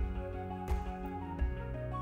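Background music: sustained melodic tones over a slow, steady beat.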